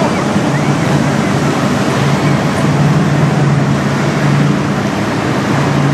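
Steady low diesel drone from a passing tugboat and barge, under a loud, even wash of choppy water.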